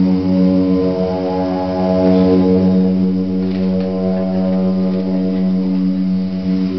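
A steady low drone rich in overtones, from a long white tube blown like a didgeridoo, with its sound fed by cable into a modular synthesizer. The pitch holds steady while the upper overtones shift slightly.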